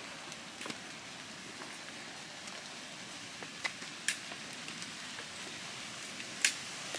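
Steady rain falling, an even hiss, with a few sharp ticks close by; the loudest tick comes near the end.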